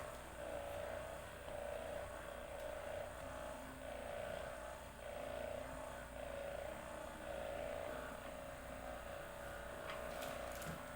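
Faint steady hum of a small electric motor, swelling and fading about once a second.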